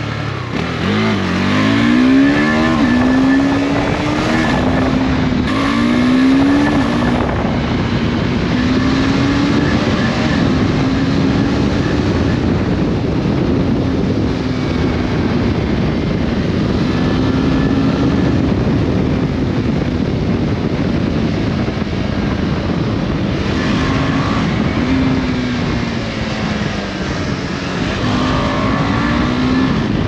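KTM 390 Adventure's single-cylinder engine under way, its revs climbing in several quick rises in the first seven seconds, then holding a steadier note, with more rises and drops near the end. A constant rush of wind on the microphone runs underneath.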